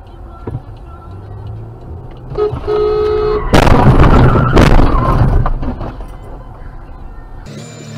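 A car horn sounds for about a second, then a loud car crash about three and a half seconds in, with a second impact about a second later, the noise dying away over the next couple of seconds.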